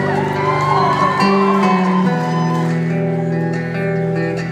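Live band music led by acoustic guitar over held low notes, with the chord changing a couple of times.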